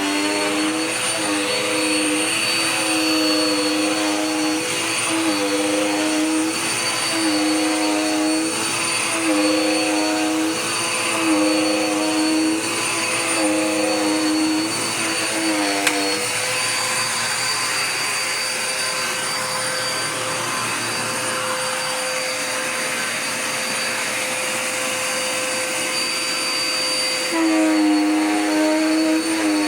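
Dirt Devil Power Max Pet vacuum cleaner running, its motor hum with a steady high whine above. For about the first half the hum dips in pitch briefly every second or two. It then holds steadier, and the dips return near the end.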